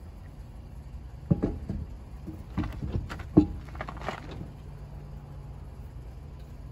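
Lug nuts clinking and tapping as they are fitted by hand onto a wheel's studs. It comes as a handful of sharp metallic clicks between about one and four seconds in, a few with a brief ring.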